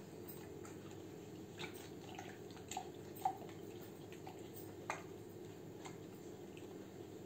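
Scattered faint clicks and rustles of a hand picking dry snacks out of a paper cup, a few soft ticks a second or so apart over a steady low room hum.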